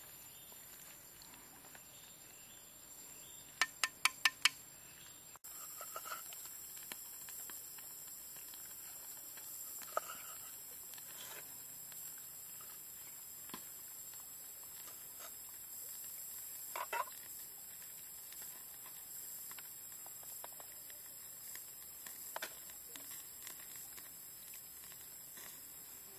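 Quiet cooking sounds: five quick sharp taps about four seconds in as chopsticks knock against a clay pot, then scattered soft clicks and knocks as a knife slices limes on a bed of leaves, over a steady high hiss.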